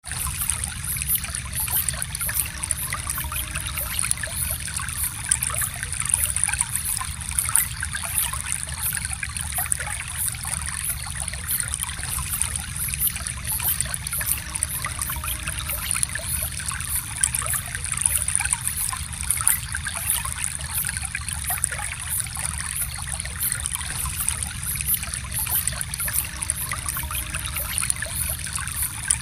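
A gentle stream of water flowing and trickling steadily.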